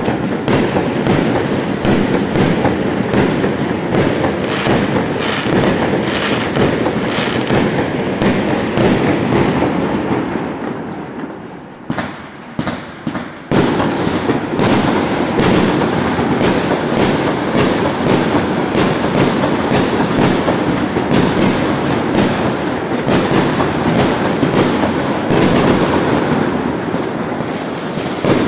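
A long string of Chinese firecrackers going off in a dense, continuous crackle of rapid bangs. The crackle thins out to a few scattered pops about eleven seconds in, then picks up again at full density a couple of seconds later.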